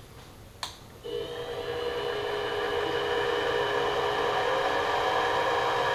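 A click, then about a second in the Sieg X2 mini mill's spindle motor starts and spins up at a slow speed: a steady whine of several tones that grows louder over the next two seconds and then holds.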